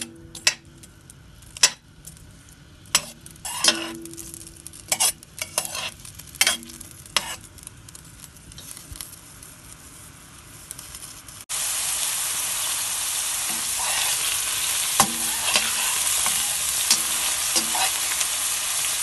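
Diced onions frying in hot oil in a metal pan, stirred with a metal spoon: sharp, ringing clinks and scrapes of the spoon on the pan over a faint sizzle, then the sizzling turns suddenly loud and steady about eleven seconds in, with a few more clinks of stirring.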